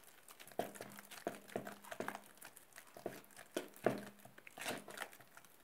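Metal fork stirring thick hummus and tahini paste in a bowl: irregular clicks and soft scrapes as the fork knocks against the bowl and works through the paste.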